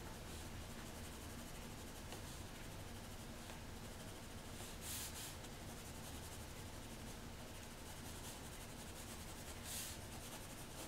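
Pencil faintly scratching on paper while shading in the water, with a short louder stroke about halfway through and another near the end.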